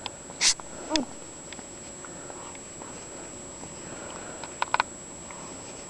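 A single sharp sneeze about half a second in, followed at once by a brief sound falling in pitch. Three quick clicks come close together near the end.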